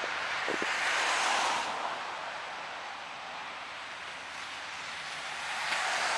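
Cars passing on a wet, slushy road: a tyre hiss on the wet surface, swelling as one car goes by about a second in and another near the end.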